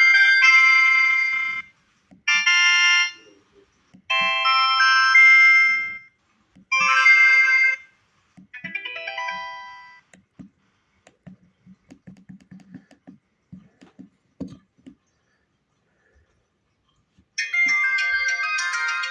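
Explay Element mobile phone playing its short electronic alert tones one after another: about five brief chimes, the last one falling in pitch, followed by a few faint clicks and a short silence. Near the end a longer ringtone-style melody starts.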